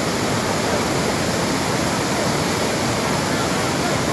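Swollen floodwater river rushing: a loud, steady wash of moving water.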